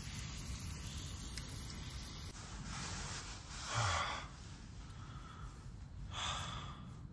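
A person breathing out three times in soft breathy puffs, the middle one the loudest, over a faint steady hiss.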